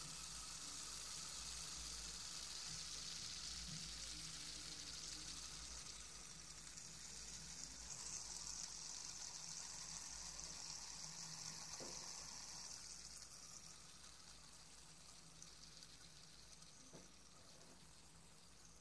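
Fidget spinner spinning freely on its centre bearing, giving a faint, even high-pitched whir that slowly dies away as it runs down.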